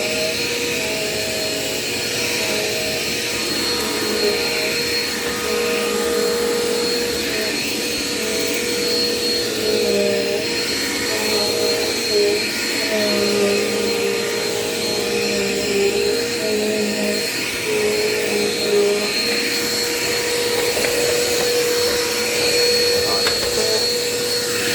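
Dirt Devil Quick Power bagless upright vacuum cleaner running steadily, its motor whine wavering slightly in pitch now and then.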